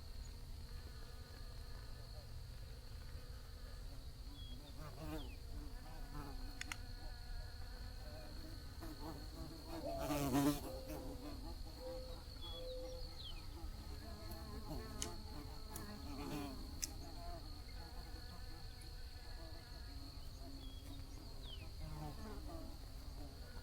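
Bees buzzing, their hum swelling and fading as individual bees fly past, with one passing close and loud about ten seconds in. A steady high-pitched whine runs beneath.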